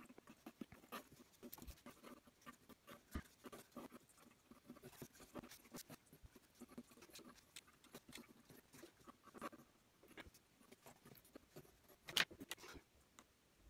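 A mechanical pencil sketching on paper: soft, scratchy strokes, short and frequent, with one louder scrape about twelve seconds in.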